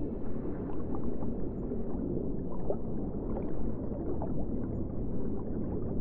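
Ocean ambience: a steady, deep wash of water noise, with a few faint short rising calls over it.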